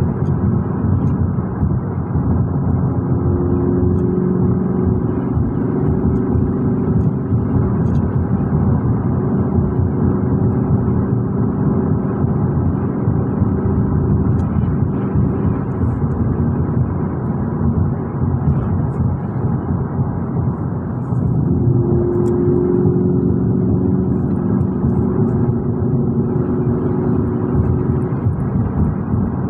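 Lexus GS F's 5.0-litre V8 and road noise heard from inside the cabin while cruising. A steady engine hum comes up clearly twice, each time for several seconds.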